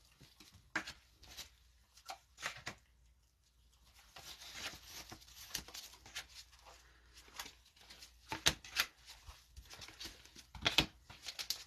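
Trading cards being flipped through by hand in nitrile gloves: soft sliding and flicking of glossy card stock, with scattered light clicks and rustles.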